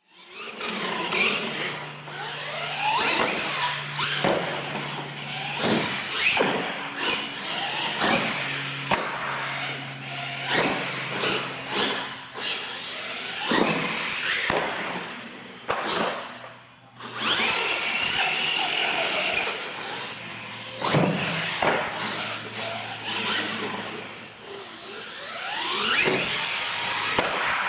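Radio-controlled monster trucks' motors whining, rising and falling in pitch as they speed up and slow down, with frequent sharp knocks as the trucks hit ramps, land jumps and bump into one another.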